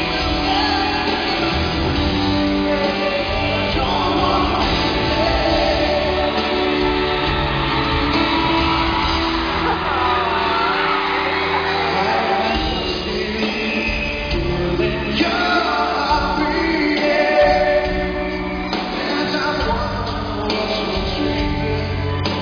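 Live rock band playing a power ballad, with a male lead vocal, recorded from the crowd in a large arena, with shouts from the audience.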